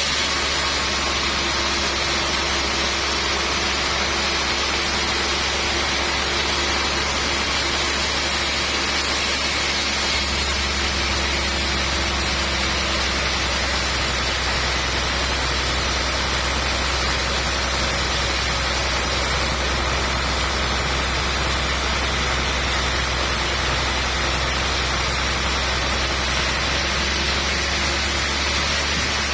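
Sawmill machinery running steadily: a constant hissing machine noise over a low hum, with no pauses or sharp strokes.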